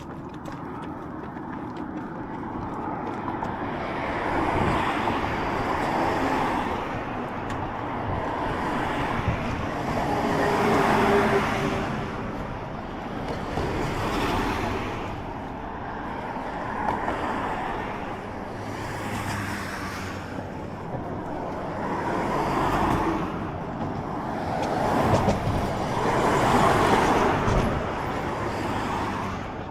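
Road traffic: cars and trucks passing one after another, each swelling up and fading away over a few seconds.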